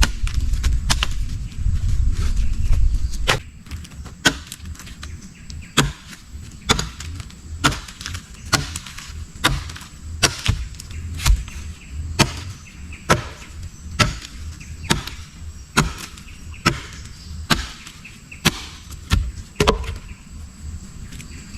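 A steady series of sharp strikes, about one a second, after a low rumble in the first three seconds or so.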